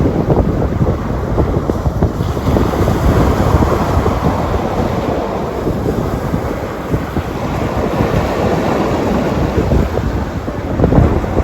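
Ocean surf washing continuously, with heavy wind buffeting the microphone in a low, fluttering rumble.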